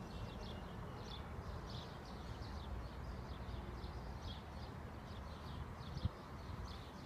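Small birds chirping, short high notes about two or three a second, over a steady low rumble, with one soft thump about six seconds in.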